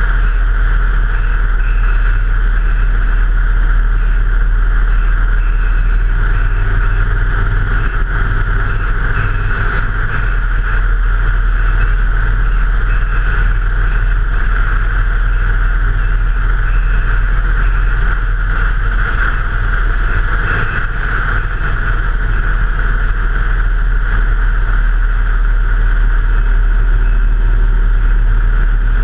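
Steady ride noise from a moving motor vehicle: engine running at an even pace under a constant rush of wind and road noise, with no gear changes or sudden events.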